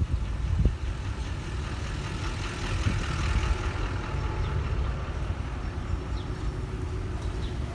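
Street traffic: nearby car engines running and idling, a steady low rumble.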